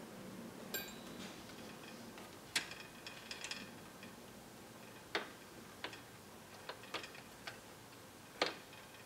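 Sharp, irregular clicks and light knocks from the parts of a BodyFloat Kinekt suspension seatpost being handled during a breakdown: metal linkage and coil spring parts tapping against each other. There are about ten clicks, spaced unevenly, with the loudest ones about two and a half seconds in and near the end.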